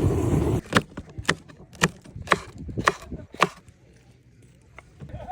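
Six sharp chops on a wooden cutting board, about two a second, as food is chopped, after a loud rushing noise that cuts off about half a second in.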